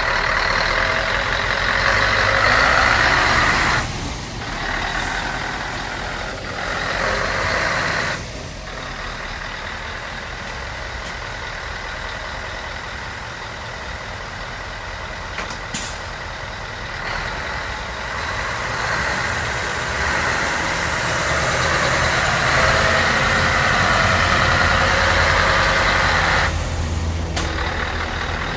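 Scania 164 480's V8 diesel engine running as the tractor unit drives around, its sound dropping off abruptly a few times. It grows fainter as the truck pulls away and louder again as it comes back. One brief sharp sound about halfway through.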